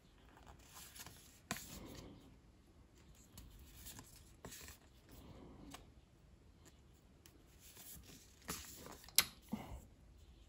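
Tarot cards being flipped through by hand, each card slid off the front of the deck and tucked behind: faint rustling of card stock on card stock with a few soft snaps, the sharpest near the end.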